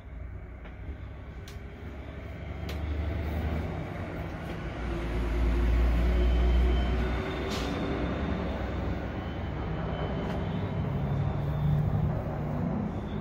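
A large vehicle's engine rumbling outside, swelling to its loudest about halfway through and again near the end, as it goes by.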